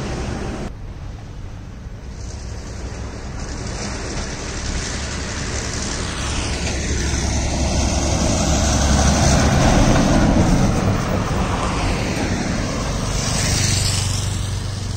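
Highway traffic passing close by: a vehicle's engine and tyre noise builds to a loud pass-by about nine to ten seconds in and fades, and another vehicle approaches near the end.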